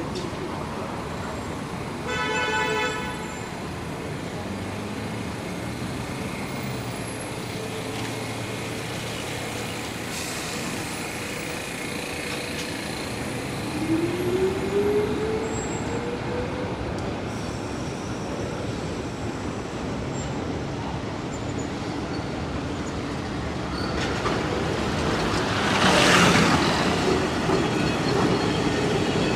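City street traffic with a short vehicle horn toot about two seconds in. A rising whine follows midway, and near the end a vehicle passes close, swelling loudly and then easing off.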